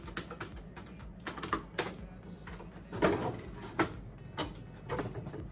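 Irregular light clicks and taps of hands working metal parts of a slot machine, with a few sharper knocks about three to five seconds in.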